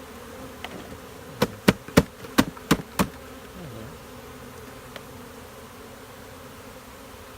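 Honey bee swarm buzzing steadily, with six sharp knocks in quick succession about a second and a half in as the swarm trap is tapped against the hive box to knock the last bees out.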